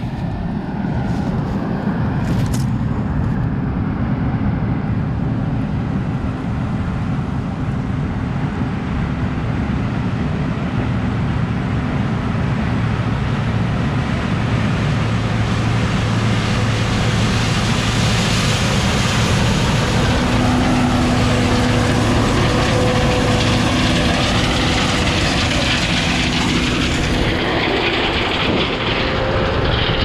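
Combine harvester running steadily while shelling corn: a continuous low diesel drone under an even mechanical rush, growing a little louder and brighter about halfway through, with faint steady tones over the top near the end.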